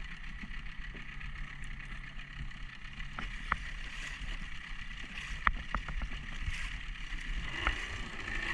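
Water lapping around a small floating craft, with a few sharp knocks, the clearest about three and a half and five and a half seconds in.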